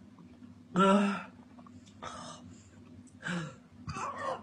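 A man gagging at the smell of a dirty nappy: one loud retch about a second in, then a few fainter gasps and heaves.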